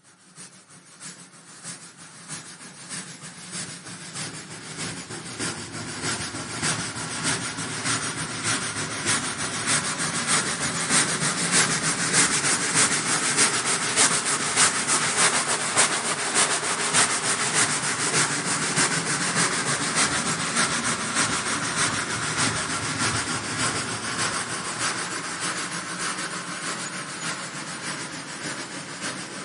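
Steam locomotive chugging in a steady rhythm of chuffs, growing louder to about halfway and then fading away.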